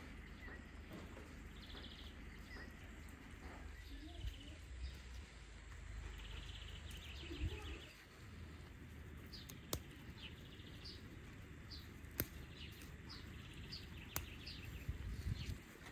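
Small songbirds chirping and trilling in short repeated phrases over a low background rumble, with three sharp clicks in the second half.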